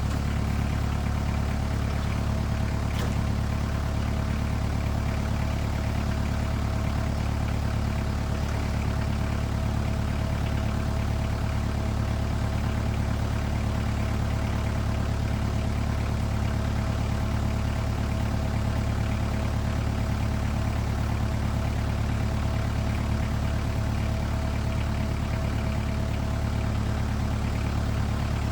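Tractor engine running steadily at an even speed, a low, unchanging drone with a thin steady tone above it.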